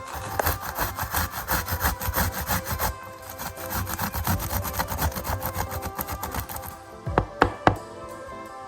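Quick repeated rasping strokes of food being prepared, over soft background music, with three sharp knocks near the end.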